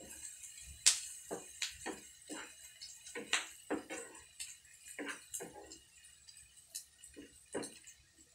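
Wooden spatula scraping and knocking against a nonstick frying pan while stirring diced hotdog and ham, an irregular run of short scrapes about two a second, the sharpest about a second in.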